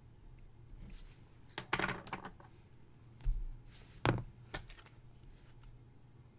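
Pen scratching on paper while writing, with a few sharp clicks and a soft bump from the pen and hand on the desk. The loudest event is a single sharp click about four seconds in.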